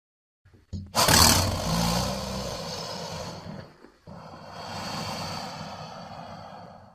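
Crocodile roaring: a loud, low, rumbling call with a hissing edge starts about a second in and fades over a few seconds. A second, quieter call follows.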